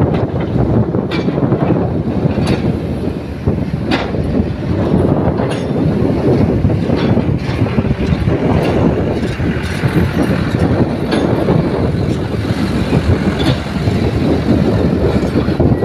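Diesel engines of a Kobelco hydraulic excavator and nearby dump trucks running in a dense, steady rumble, with scattered sharp clanks and knocks from the digging.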